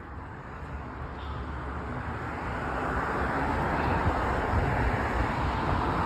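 Street traffic noise: a vehicle's rumble growing steadily louder over a few seconds.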